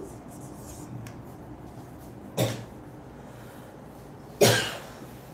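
Marker being written on a whiteboard, with two short knocks against the board about two seconds apart.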